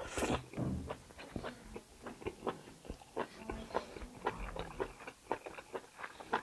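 Close-up mouth sounds of chewing and biting: irregular wet clicks and small crunches, a few a second, as tough kalij pheasant meat is chewed.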